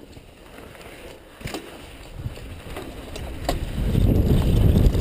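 Mountain bike rolling down a dirt trail, with tyre rumble and wind rushing on the microphone growing louder as speed builds over the second half. A few sharp clicks and rattles of the bike over bumps.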